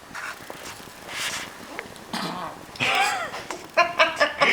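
A Yorkshire terrier burping after drinking water: one short, low burp about two seconds in, followed by a person's voice.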